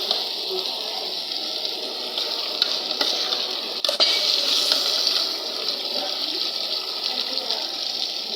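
Steady sizzling hiss of chopped vegetables and meat frying in a pan, with two sharp clicks about three and four seconds in, after which the sizzle briefly grows louder.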